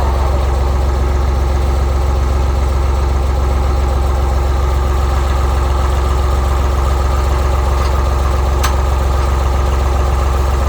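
Tractor engine idling steadily with a deep hum, and a single sharp click about eight and a half seconds in.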